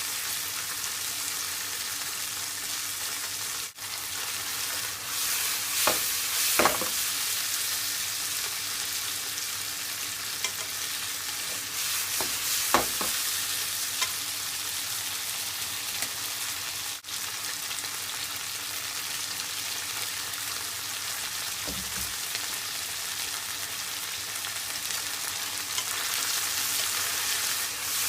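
Food sizzling steadily in a frying pan as it is stir-fried, with a few knocks of the cooking utensil against the pan about six, seven and thirteen seconds in.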